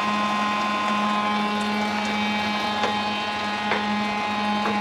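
A steady machine hum, with a few light knocks of a wooden spatula stirring vegetables in a wok.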